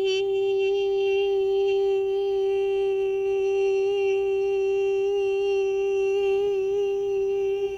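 A woman's voice holding one long, steady hummed note, a drawn-out "beep" that imitates a heart monitor's flatline tone; it breaks off near the end.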